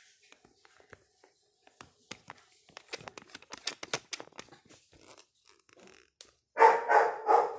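A dog barking three times in quick succession near the end, after a run of light clicks and knocks from the camera being handled.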